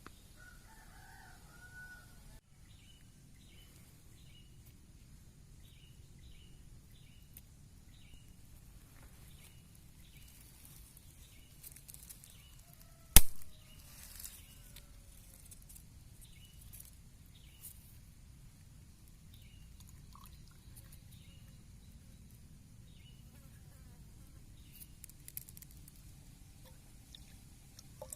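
Faint bird chirps repeating about twice a second, with one sharp, loud knock about halfway through.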